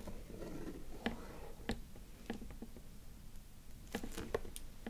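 Long fingernails tapping and clicking on a cardboard box as it is handled: a handful of light, separate clicks.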